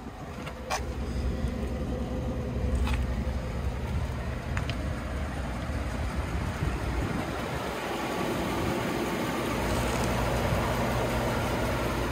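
Ford F-150 pickup's engine idling steadily, with three light clicks in the first five seconds and wind noise on the microphone building over the last few seconds.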